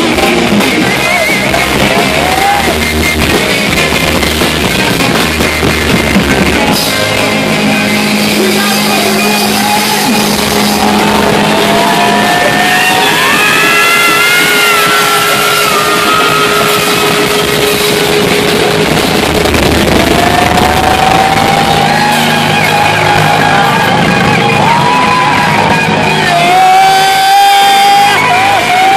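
Live heavy-metal band playing loud: distorted electric guitars and drums, with long held notes that slide in pitch. The recording is rough and overloaded.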